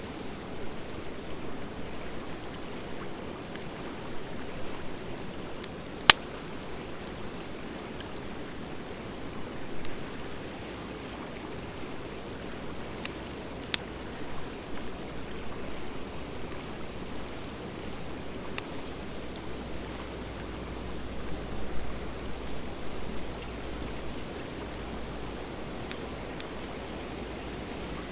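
Campfire of driftwood and dry hardwood logs burning with a steady rushing hiss, broken by a few sharp crackling pops. The loudest pop comes about six seconds in, and three more follow over the next dozen seconds.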